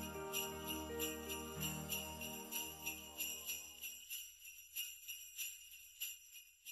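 Closing music: jingle bells shaken in a steady beat, about three strokes a second, over held chords. The chords stop a little past halfway and the bells go on alone, fading out.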